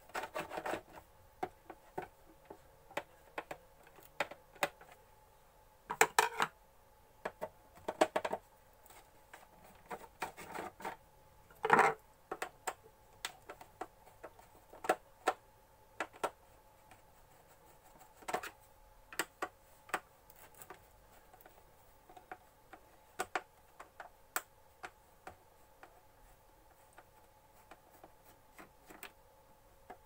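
Screwdriver undoing screws in the plastic base of a mixer grinder: irregular clicks and small knocks of metal on plastic, with a few louder clattery bursts about 6, 8, 10 and 12 seconds in. A faint steady hum runs underneath.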